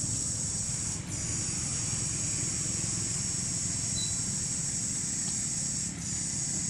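Steady, high-pitched chorus of insects, dipping briefly about a second in and again near the end, over a low steady rumble.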